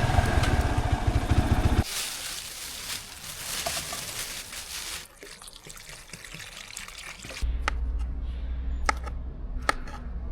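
A motorcycle engine running for about the first two seconds, then a sudden change to a steady trickling, water-like hiss. From about seven and a half seconds a low hum comes in with a few sharp knocks.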